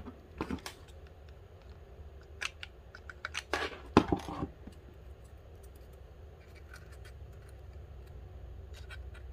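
Light clicks and taps of a mini hot glue gun and a small craft bird being handled on a plastic cutting mat, loudest about four seconds in, over a faint low hum.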